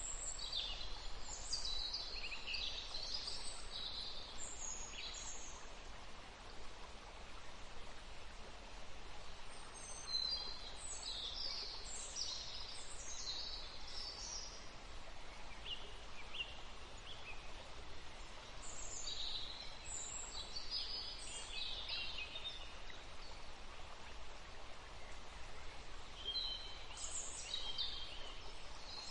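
Songbirds singing in bouts of quick, high chirps and trills, with pauses between, over a steady background hiss.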